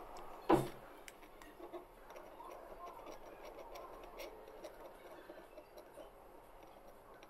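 3D-printed plastic model parts being handled and pressed together: one sharp plastic click or knock about half a second in, then faint rubbing and light clicks of the parts in the hand.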